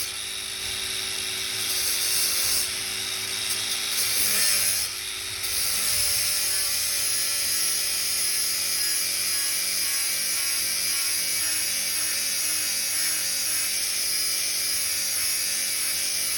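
Angle grinder running and grinding the steel teeth of a drum mulcher: a steady, high-pitched grinding hiss with a short dip about five seconds in.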